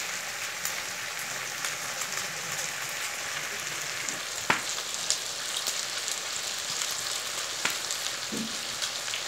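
Pork belly cubes sizzling in a wok: a steady frying hiss with scattered pops of spattering fat, the sharpest about halfway through.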